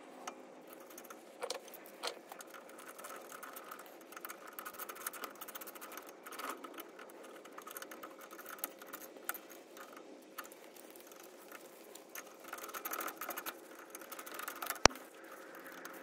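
Small metallic clicks and rattles of a brake caliper guide bolt being threaded in by hand and tightened with a wrench, with patches of quicker clicking and one sharp metal click near the end.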